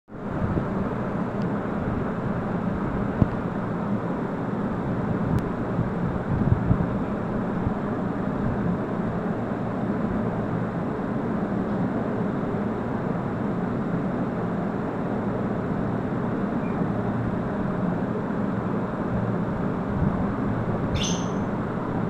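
Steady rumbling background noise with a few soft knocks. About a second before the end comes a short, high-pitched call from an African grey parrot.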